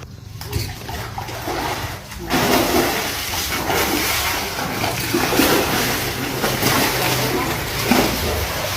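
Farmed grouper splashing at the water surface as they take food, a continuous churning splash that starts about two seconds in.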